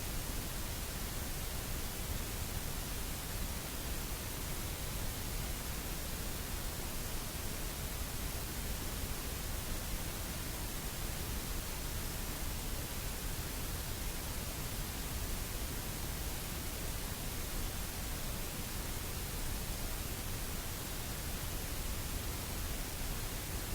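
Steady, even hiss of static noise with no change, rhythm or other sound.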